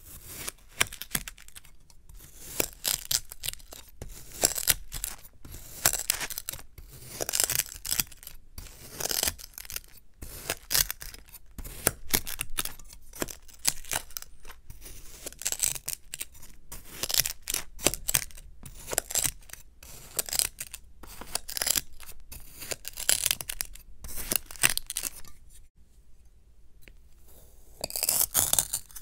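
A knife slicing again and again through packed kinetic sand, giving crisp, gritty crunches in quick repeated strokes. The cutting pauses for about two seconds near the end, then one last crunching cut follows.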